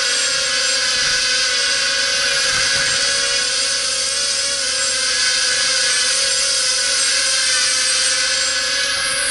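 Eachine Racer 250 quadcopter's brushless motors and propellers whining in flight: several steady tones that waver slightly with throttle, over a strong hiss.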